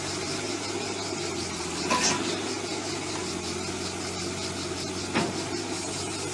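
A heavy machine's engine running steadily, with two short knocks, the louder one about two seconds in and another about five seconds in.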